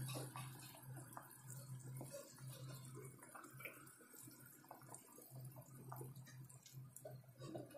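Near silence: faint scattered ticks and clicks over a low hum that drops in and out.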